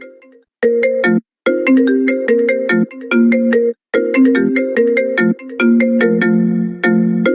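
Phonk ringtone music: a repeating melody of short ringing notes over sharp clicking percussion, with a low held bass note near the end. It cuts out briefly three times: at the start, just after a second, and near four seconds in.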